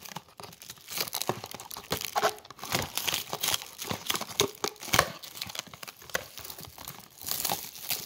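Aluminum foil crinkling and crackling in quick, irregular bursts as it is handled and pulled out of its box.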